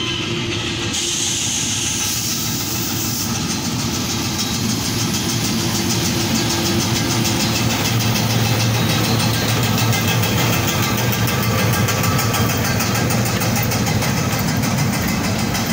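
Tanzania Railways 88 class diesel locomotive drawing near and passing close by with a passenger train. Its engine drone is loudest as the locomotive goes by, about halfway through, then gives way to the steady rumble and rapid clatter of the coach wheels on the rails.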